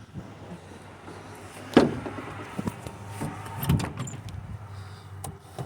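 A van door being worked: a loud clunk about two seconds in, followed by smaller knocks and clicks of the latch and door.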